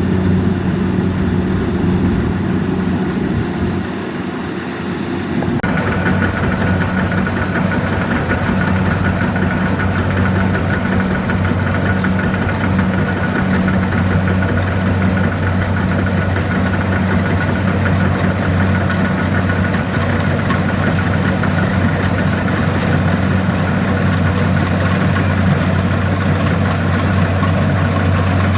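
Kubota DC-70 Plus combine harvester's diesel engine running steadily with a low hum. About five and a half seconds in, the sound changes suddenly and a steady higher-pitched whine joins.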